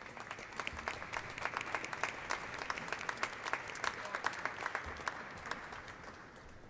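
Audience applauding in a large cathedral nave: dense clapping that builds over the first second, holds, then thins out near the end.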